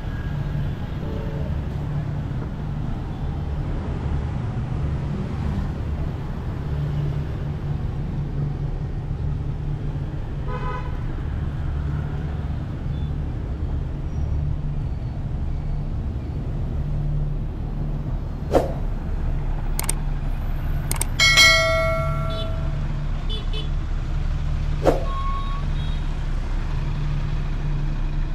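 City street traffic: a steady low rumble of engines and road noise. A short vehicle horn beep sounds about ten seconds in, and a louder horn honk of a second or so about twenty-one seconds in. A few sharp clicks fall around the honk.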